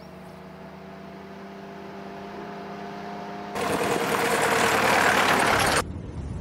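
A jeep's engine runs steadily as it approaches, slowly growing louder and a little higher. About three and a half seconds in, a loud crunch of tyres rolling over gravel with the engine close by takes over, then cuts off suddenly about two seconds later.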